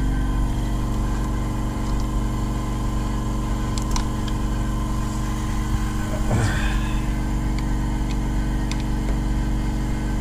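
A steady mechanical hum, even in level, with a few faint sharp clicks of hands working the plug connector off the EGR valve.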